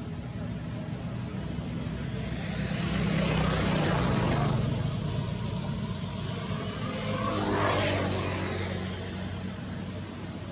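Motor engine noise: a steady low hum, with two vehicles passing by, one peaking about four seconds in and another near eight seconds.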